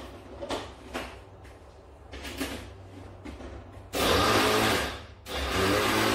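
Countertop electric blender grinding digestive biscuits into crumbs: it switches on about four seconds in, stops briefly a second later and starts again. Before that, a few light knocks of dishes being handled.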